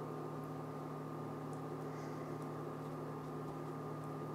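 Induction cooktop running under a frying pan: a steady electrical hum with a higher whine above it. A silicone spatula faintly scrapes the non-stick pan a few times as batter is spread.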